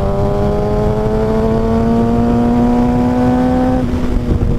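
Kawasaki ZX-6R 636 inline-four engine accelerating hard in one gear, its note climbing steadily, then dropping in pitch about four seconds in.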